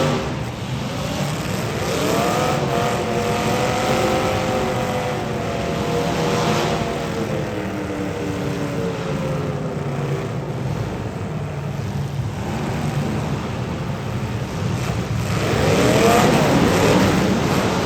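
Demolition derby cars' engines running and revving, their pitch climbing and falling repeatedly over a steady low rumble, with a fresh hard rev near the end.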